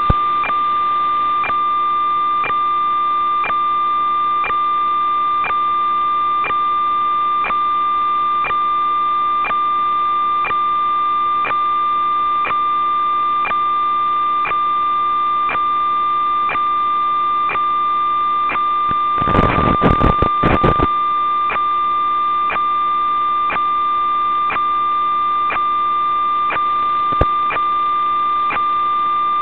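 Steady electronic whine with a faint tick about once a second: interference noise on the audio track of an analog 5.8 GHz FPV video recording, not the quadcopter's motors. A short burst of crackling static comes about two-thirds of the way in.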